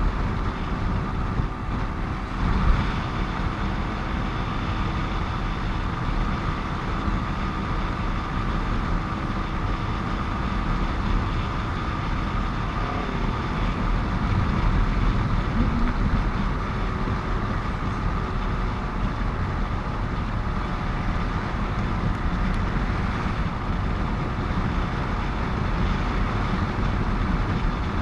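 Steady noise of a motorcycle being ridden along a busy highway: engine hum, wind and road rumble, with trucks and cars around, and a brief louder moment a few seconds in.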